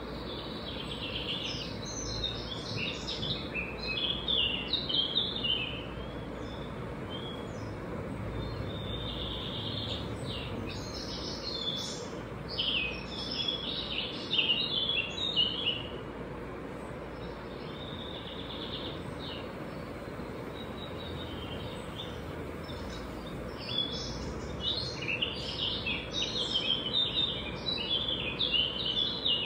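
Birds chirping in three spells of rapid high chirps, over a steady background hiss.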